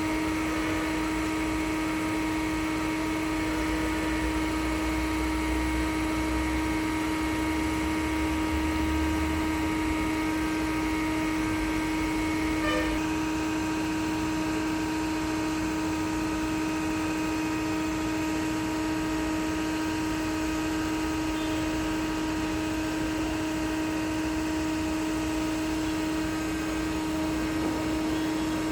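Concrete pump's engine running at a constant speed: a steady, unchanging drone with a single tone standing out, and one brief click about halfway through.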